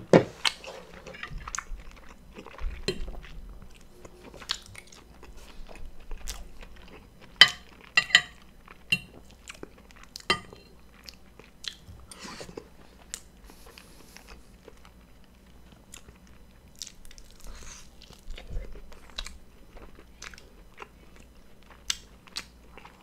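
Close-up eating sounds: biting and chewing a sauce-dipped lollipop chicken drumstick, with many sharp, crisp clicks that are busiest in the first half and thin out later.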